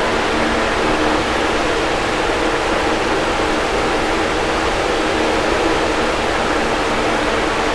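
Electric fan running steadily, an even whoosh of moving air with a faint motor hum underneath.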